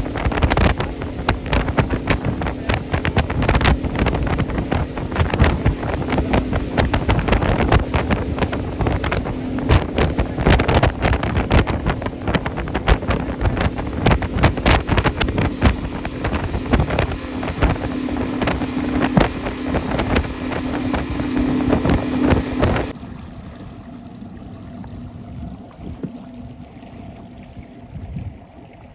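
Motorboat engine running steadily under way, with wind buffeting the microphone. The engine noise drops away suddenly about 23 seconds in.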